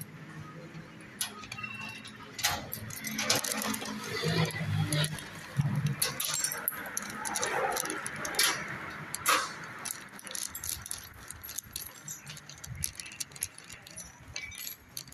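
Light metallic jingling and clinking, many small clicks scattered irregularly, with rustling handling noise.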